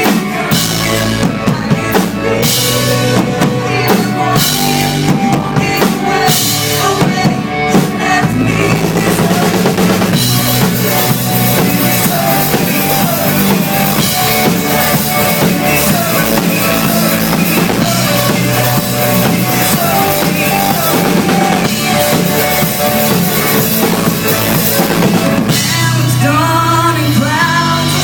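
Pop-rock band playing live, a drum kit with bass drum and snare keeping a steady beat under the rest of the band.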